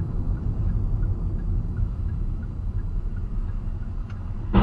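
Steady low rumble of a car's engine and tyres on the road, heard from inside the cabin through a dashcam microphone.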